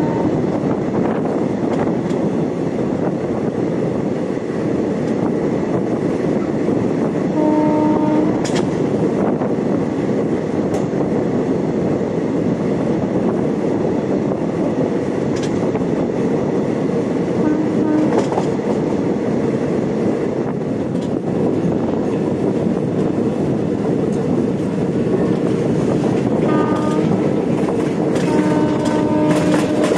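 Indian express passenger train running with a steady rumble and occasional wheel clicks. Its horn sounds briefly about eight seconds in and again near the end with a longer blast.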